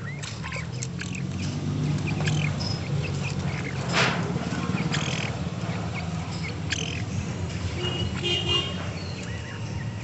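Grey francolins giving scattered short, high chirps and calls, over a steady low hum; a sharp knock about four seconds in.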